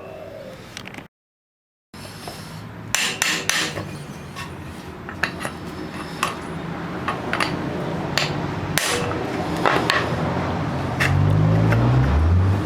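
Hammer blows on the seized mechanism of a 1938 Chevrolet inner door handle, irregular sharp metal strikes to drive the stuck part free, with a low wavering hum near the end.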